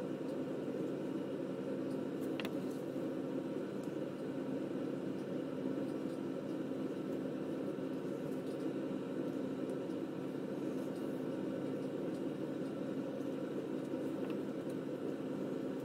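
Steady low hum of room background noise, with one faint click about two and a half seconds in.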